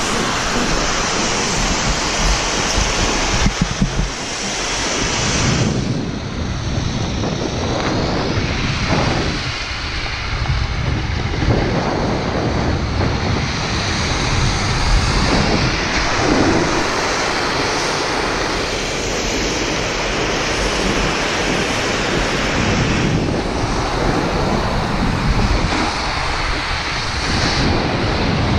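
Wind rushing and buffeting over the microphone of a camera carried by a snowboarder riding downhill, loud and unsteady throughout.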